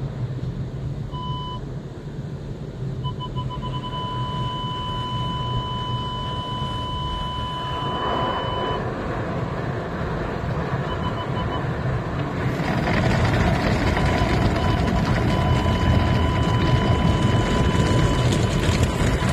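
Automatic car-wash tunnel heard from inside the car: a steady rumble of machinery and water, with brushes and cloth strips working over the body that get louder about two-thirds of the way through as the strips sweep the windshield. Over it, the car's parking-sensor beeper sounds, its beeps quickening into a continuous tone as the brushes come close, stopping, and coming back later.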